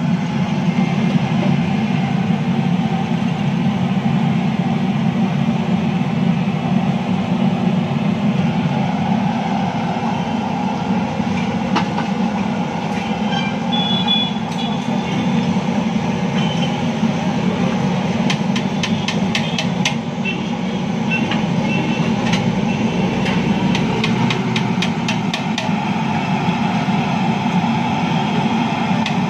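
A steady low rumbling noise, with light metallic clinks of ladles and steel vessels being handled, most frequent a little past the middle.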